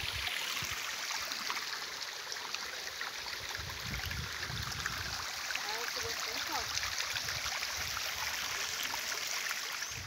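Small shallow stream running and trickling over stones, a steady hiss of water, with a few low muffled bumps.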